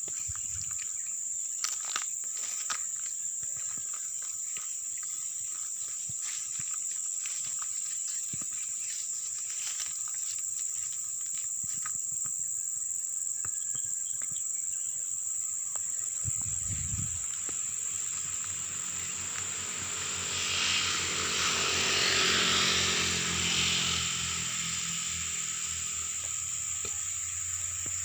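Insects droning steadily at a high pitch. About two-thirds of the way through, a motor vehicle's engine swells and fades as it passes.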